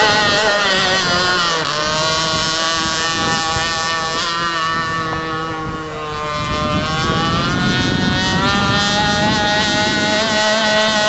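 26 cc two-stroke gasoline engine of a TFL Hobby Sharp Sword RC speedboat running. Its pitch drops about two seconds in and climbs back up from about seven seconds.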